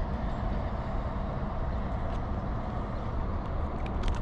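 Steady low rumble of road traffic on a highway bridge, with a couple of light clicks near the end.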